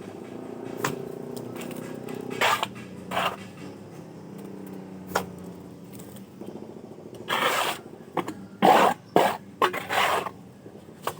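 Plastering trowel scraping wet cement render across a wall in short strokes, a few at first and a quick run of them in the second half, over a steady low hum that fades out about halfway.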